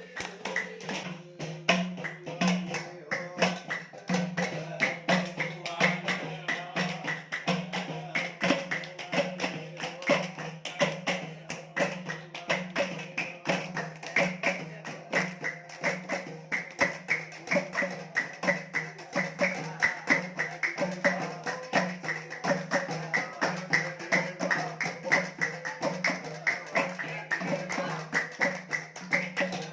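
Background music with a fast, steady beat of hand percussion.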